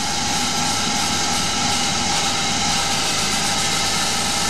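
Hercus benchtop CNC lathe taking a turning cut in aluminium: the spindle motor runs under load while the insert tool cuts, a steady machining noise with a constant whine.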